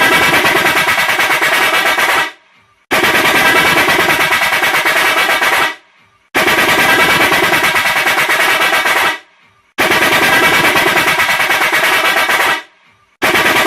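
Electric car horn sounded as a 'çat çat' horn: each blast a fast stuttering rattle of beeps lasting about three seconds, with half-second pauses between them, repeated four times and a fifth blast starting near the end.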